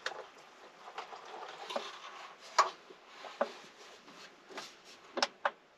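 Objects being handled and moved about: soft rustling with a handful of separate sharp clicks and knocks, the loudest about two and a half seconds in and a quick pair near the end.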